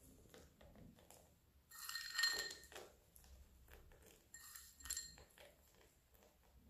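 Small glass bowl clinking twice as chopped almonds are taken from it by hand, each clink ringing briefly.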